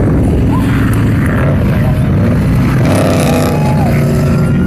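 Off-road race vehicle engines running, a loud, steady drone.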